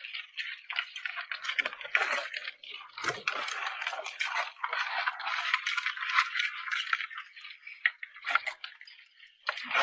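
Live crabs clicking and clattering shell against shell as a catch is sorted by hand: a dense, continuous rattle of small clicks.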